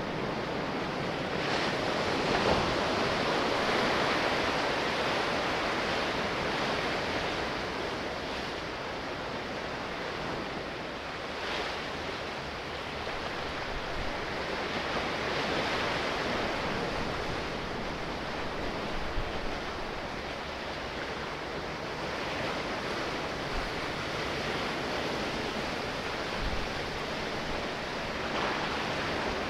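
Sea waves washing continuously, swelling and easing in slow surges about every twelve seconds.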